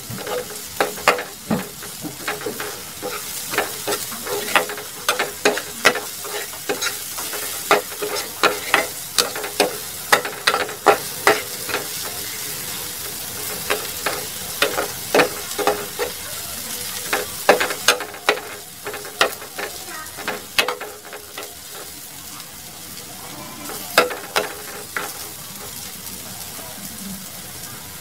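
Sliced onion and garlic sizzling in oil in a frying pan, with a spatula scraping and knocking against the pan as they are stirred, about once or twice a second. The stirring stops about two-thirds of the way through, leaving the steady sizzle.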